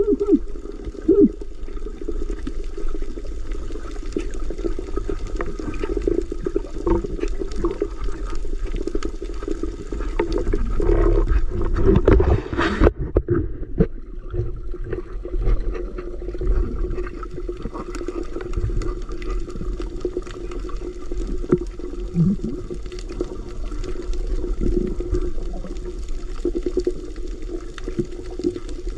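Water swirling and bubbling around an underwater camera, muffled and continuous, with a louder rush of water about twelve seconds in.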